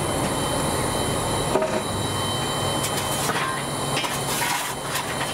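Steady hiss and rumble in the cab of a D51 steam locomotive standing in steam, with a sharp metal knock about a second and a half in and a few shorter clanks and bursts of hiss later.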